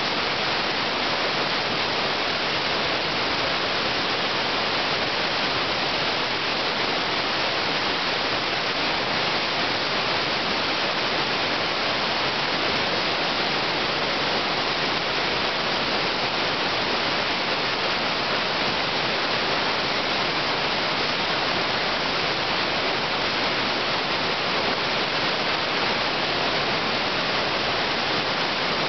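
River rapids: whitewater rushing over rocks, a steady, even rush that is more hiss than rumble.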